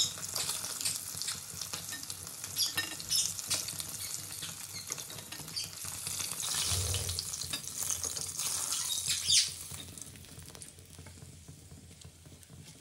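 Fish steaks sizzling as they fry in hot mustard oil in a wok, with a metal spatula scraping and clicking against the wok as the pieces are turned and lifted out. The sizzle drops off in the last few seconds as the fish comes out of the oil.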